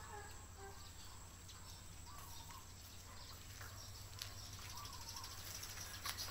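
Faint outdoor ambience of birds calling, short wavering whistled notes every second or two, over a steady high insect buzz.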